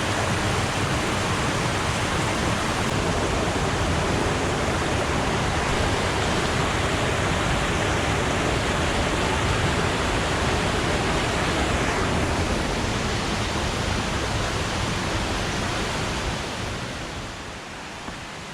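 Waterfall running heavy with rainy-season water: a steady, dense rush that fades down near the end.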